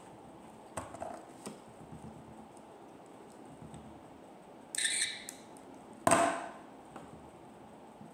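Handling noise of small objects moved right at the microphone: a few light clicks about a second in, a short bright rasp near five seconds, and a sharp knock about six seconds in.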